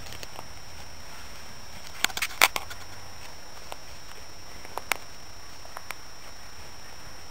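A few crackling footsteps on twigs and debris: a quick cluster of snaps about two seconds in, then single cracks near five and six seconds, over a steady low hiss.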